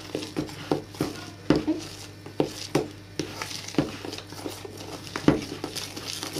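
Dry seed-and-grain flour, salt and baking soda being mixed by hand in a bowl: irregular light knocks and scuffs against the bowl, about two a second, with a soft rustle of the flour.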